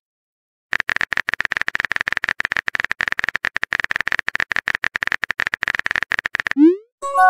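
Messaging-app keyboard typing sound effect: a fast, steady run of soft clicks as a message is typed. Near the end, a short rising swoop as the message is sent, then a bright chime begins.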